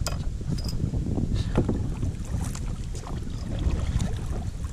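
Wind rumbling on the microphone while water laps against a kayak's hull, with scattered small splashes and clicks.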